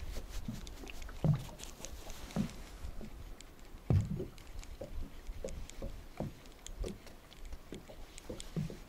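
Water lapping and slapping irregularly against the hull of a small fishing boat, a soft knock every half second to a second.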